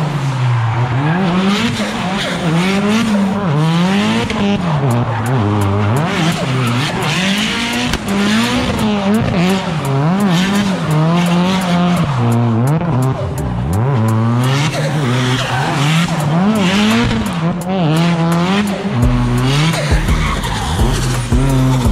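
Toyota Starlet KP60 drift car with a 20-valve turbo engine drifting, its engine revving up and down again and again while the rear tyres squeal and smoke.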